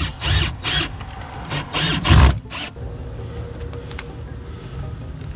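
Cordless drill driving screws through a round plastic base plate into the carpeted plywood boat floor, in about six short trigger bursts over the first couple of seconds, then quieter.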